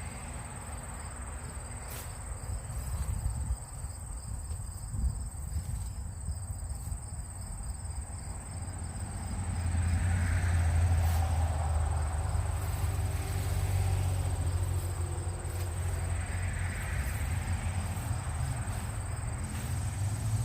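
Insects trilling steadily on one high note outdoors, with a low rumble that swells about halfway through.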